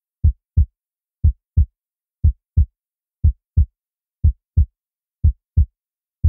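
Heartbeat: low double thumps in a steady lub-dub rhythm, about one pair a second, evenly spaced.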